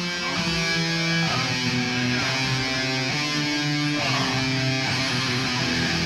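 Death/thrash metal music: electric guitars playing a slow passage of held notes that change every half second to a second, with no singing.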